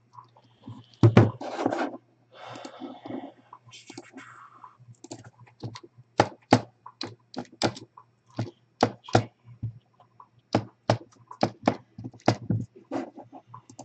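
A loud thunk about a second in and some rustling, then an irregular string of sharp clicks and taps, a few a second, over a faint steady electrical hum.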